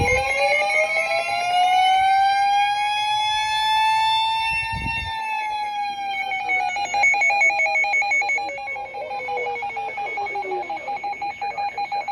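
Emergency Alert System attention signal: a steady, loud two-tone alarm. A siren rises slowly and then falls once over it. From about halfway through, the alert tones break into a rapid stuttering beep.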